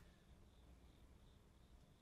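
Near silence: faint room tone with a low hum and a faint high-pitched pulsing, about two or three pulses a second.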